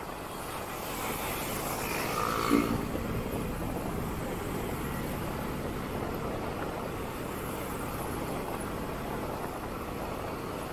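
Motorcycle riding in city traffic: steady engine, tyre and wind noise mixed with the surrounding traffic. About two and a half seconds in, the noise swells to a short, louder pitched sound, likely from a passing vehicle.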